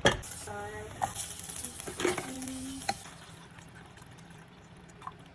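A sharp knock, then food sizzling in a pan as it is stirred, with a few utensil clinks and scrapes; the sizzle dies down after about three seconds.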